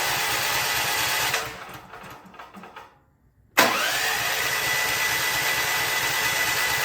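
Champion Black Diamond 6800 generator's electric starter cranking the engine, with a whine that rises and holds steady. The first attempt stops about a second and a half in, and the second starts after a short pause. The engine spins over without firing: it has no compression, because the intake valve has dropped and bent.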